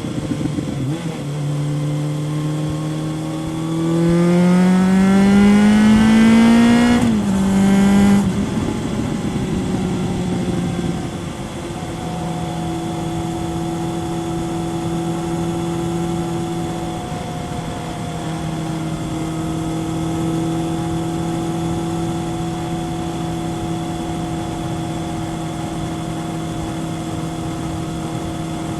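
Kawasaki ZRX 1100's inline-four engine through a Yoshimura exhaust, heard from on the bike: the note climbs steadily under acceleration from about four to seven seconds in, falls sharply, then holds a steady pitch while cruising.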